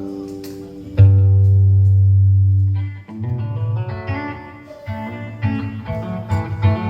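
Guitar music with a bass line: a chord struck about a second in rings for about two seconds, then shorter plucked notes follow.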